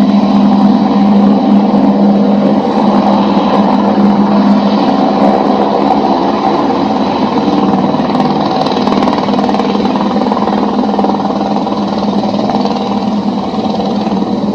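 Squirrel helicopter's turbine engine and rotor running steadily, with a thin high whine over a heavy low drone; it eases slightly about a third of the way in.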